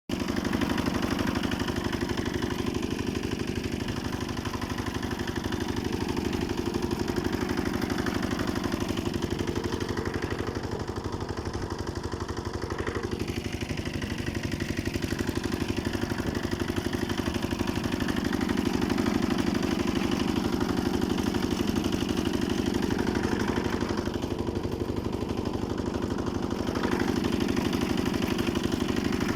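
Engine of a walk-behind tractor with a rotary tiller, running steadily with a rapid even beat, its level rising and falling a little.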